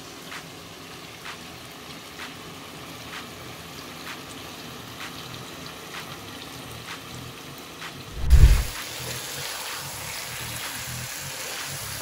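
Chicken pieces sizzling quietly as they brown in a frying pan. A little over eight seconds in there is a loud knock, and the sizzle turns louder and harsher as a wooden spatula stirs the chicken.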